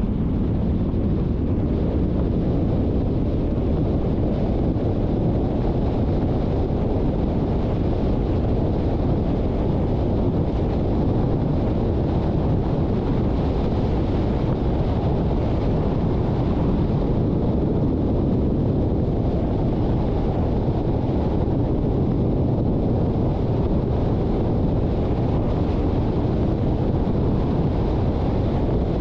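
Steady low rumble of a car driving: tyre, road and engine noise, even and unbroken.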